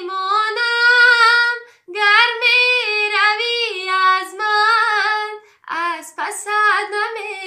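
A young woman singing a Tajik-Persian song alone with no accompaniment, in long held and ornamented phrases. There is a short break about two seconds in and another near six seconds.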